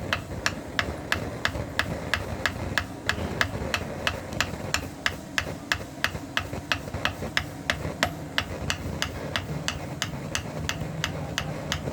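Rapid, evenly spaced sharp taps, three or four a second, over a steady low hum.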